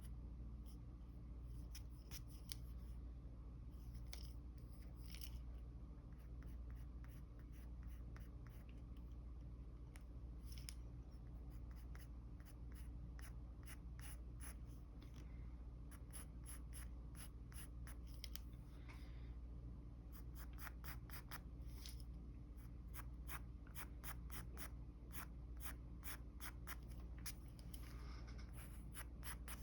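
Mechanical pencil scratching on paper in short strokes, quickening into rapid back-and-forth hatching about two-thirds of the way through, over a steady low hum.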